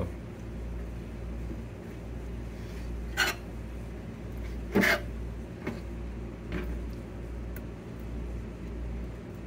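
Fillet knife cutting Spanish mackerel belly meat on a cutting board: a few short scrapes and knocks, the two loudest about three and five seconds in, over a steady low hum.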